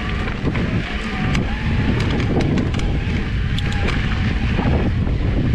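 Wind rushing over a handlebar-mounted action camera's microphone while an electric mountain bike rides a dirt trail, with a steady low rumble of tyre and trail noise. Scattered sharp clicks and rattles from the bike run through it.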